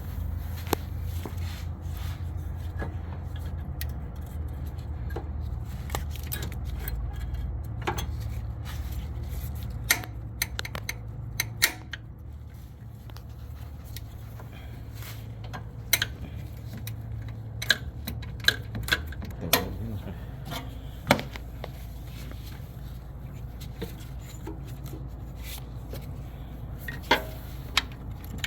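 Hand tools and metal parts clinking and clicking at irregular intervals during repair work on a car, over a steady low hum.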